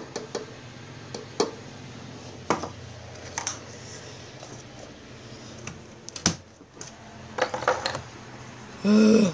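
Scattered light clicks and knocks of objects being handled, over a low steady hum, with a sharper knock a little past the middle and a quick run of clicks after it. A short voice-like sound comes near the end.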